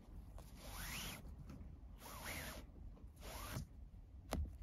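Nylon paracord sliding and rubbing against other cords as it is pulled through and wrapped: three faint rasping swishes about a second apart, then a short click near the end.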